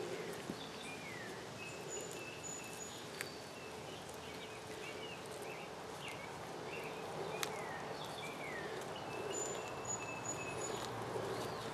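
Birds singing in short chirps, downward-sliding whistles and thin high notes, over a steady low hum, with a couple of faint sharp clicks.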